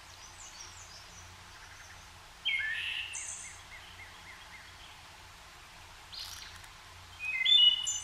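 Songbirds calling in the background: a bright call about two and a half seconds in that runs on into a quick string of repeated notes, and another high call near the end, over a faint steady low hum.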